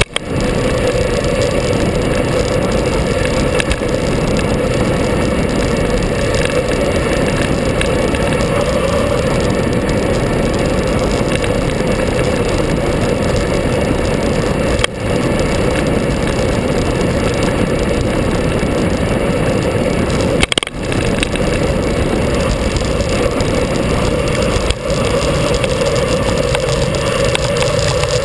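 Steady loud rushing of wind and road noise on a vehicle-mounted action camera during a fast downhill run, with a constant hum under it. The sound drops out briefly three times, about halfway through, two-thirds of the way through and near the end.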